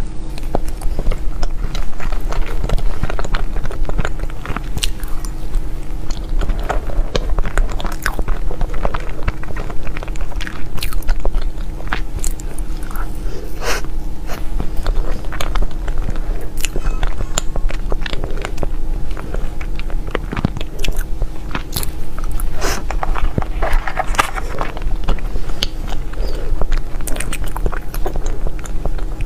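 Close-miked eating: biting, crunching and chewing food, with frequent irregular crisp crackles, over a steady low hum.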